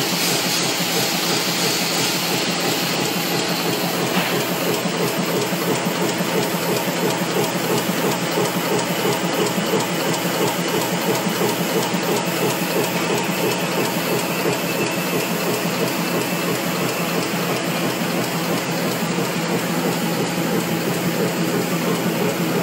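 Screw-making machinery running steadily in a factory, a fast, even mechanical clatter over a continuous hum.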